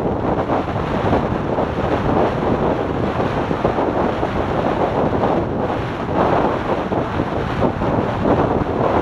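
Wind buffeting a motorcycle-mounted camera microphone at highway speed: a loud, steady, fluttering rush that covers the engine and tyre noise.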